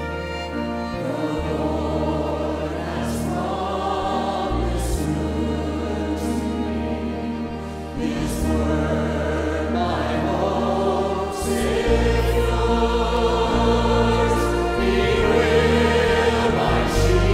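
Church hymn sung by a congregation and choir, with instrumental accompaniment holding sustained deep bass notes. The singing comes in about a second in.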